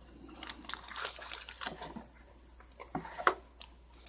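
Packaging being handled during an unboxing: scattered light clicks and rustles, with one sharper click about three seconds in.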